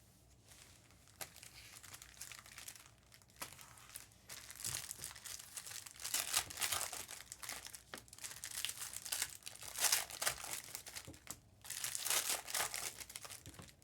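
Trading-card pack wrappers crinkling and cards being handled, in irregular crackles that grow louder from about four seconds in.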